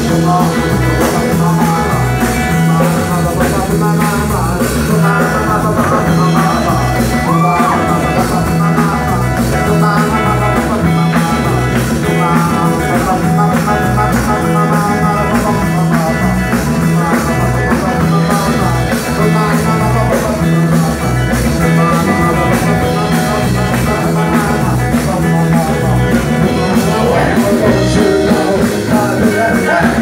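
Live rock band playing a surf-rock medley at full volume: electric guitars, bass and drum kit driving a steady beat, with some singing over the top.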